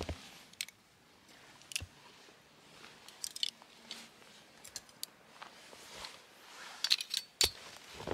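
Icicles and crusted snow being knocked off the edge of a boulder by hand: scattered crisp snaps and crunches, with the loudest cluster about seven seconds in.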